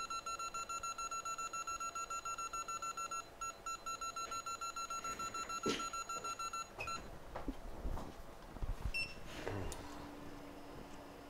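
An electronic beeper sounding a rapid string of high beeps, several a second, which stops about seven seconds in. Then come a few small clicks and a short single beep, and a steady low hum starts near the end.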